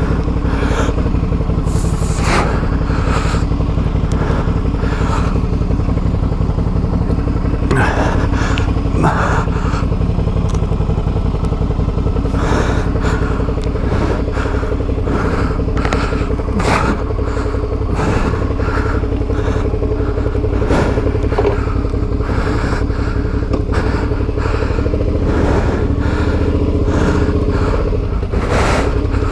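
Adventure motorcycle engine running steadily at low revs, with frequent knocks, clatter and scrapes scattered throughout.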